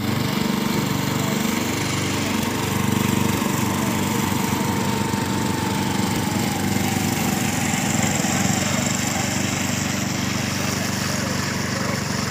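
Small engine of a railway motor trolley running steadily with a fast, even chug.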